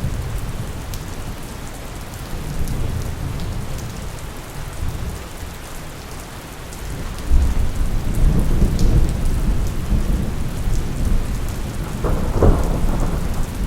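Steady rain with rolling thunder. A low rumble eases off, swells suddenly about halfway through, and a sharper thunderclap comes near the end.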